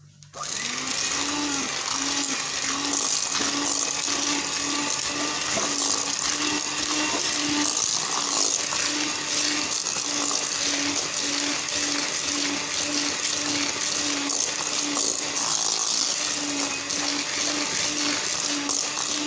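Electric kitchen mixer switched on about half a second in and running steadily with an even whirring hum, mixing eggs into cake batter.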